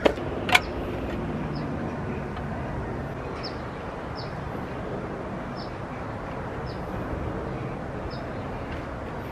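Steady outdoor background rumble, with a short high chirp repeating about once a second. Two sharp knocks sound in the first half second.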